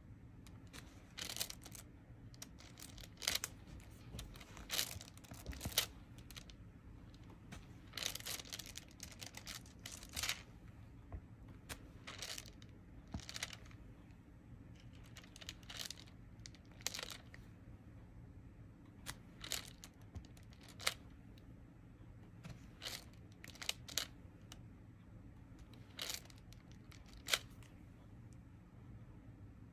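Diamond painting being worked: irregular crisp clicks and crinkly crackles as resin drills are pressed onto the sticky canvas and the clear plastic cover sheet is handled, sometimes singly and sometimes in quick clusters.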